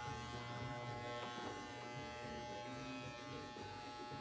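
Electric hair clippers running with a steady buzz, being used to cut hair.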